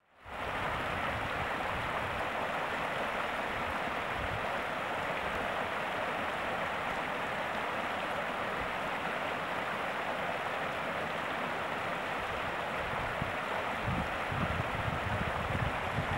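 Steady rushing of creek water, with low gusts of wind on the microphone in the last few seconds.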